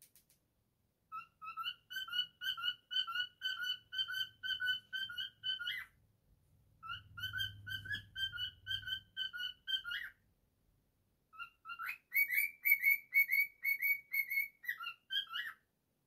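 Cockatiel whistling: three phrases of quick, evenly spaced notes, about four a second, each phrase ending in a short upward slide.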